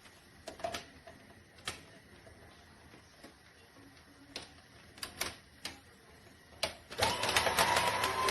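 Scattered plastic clicks and knocks, then about seven seconds in a small juicer motor starts abruptly and runs with a steady whine and crackling.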